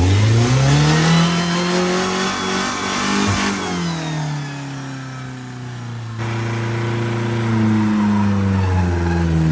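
Ford Ranger pickup's engine revving up and holding high revs, dropping back about four seconds in, then revving up again and settling near the end. The engine is running with peanut butter in its crankcase in place of engine oil.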